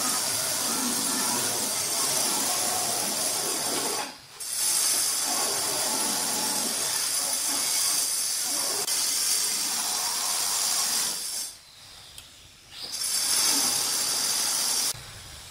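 Stone-cutting machinery running with a steady loud hiss and a rough, shifting rumble beneath. It breaks off briefly about four seconds in and again for about a second near the twelve-second mark, then drops away near the end.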